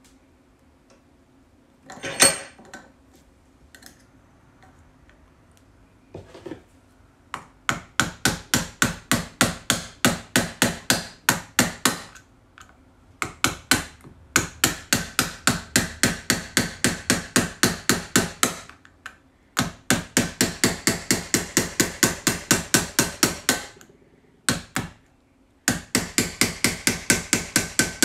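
Small tapping hammer striking a screwdriver in quick runs of metal-on-metal taps, about four or five a second with short pauses between runs, driving the blade under the rolled edge of a combination padlock's back plate held in a bench vise. A single louder clank comes about two seconds in.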